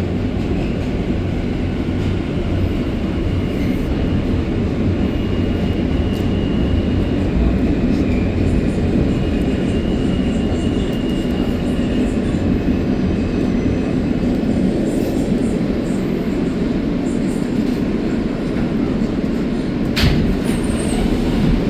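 Steady rumble inside an R160A subway car standing at a station with its doors open, with one sharp knock about twenty seconds in.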